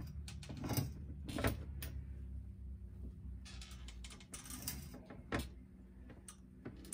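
Irregular clicks, knocks and scrapes of metal as an outboard motor is shifted lower on its stand, over a steady low hum.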